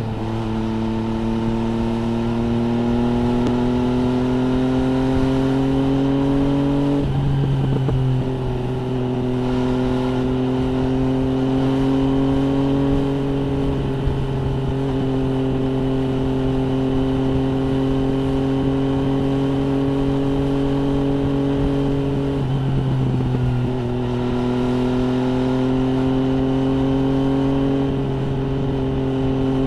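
MV Agusta Brutale 800 RR's three-cylinder engine, breathing through a Fratelli Fresco aftermarket exhaust, pulling under gentle acceleration, its pitch rising slowly. It shifts up a gear about 7 seconds in and again about 23 seconds in, the pitch dropping briefly each time before climbing again.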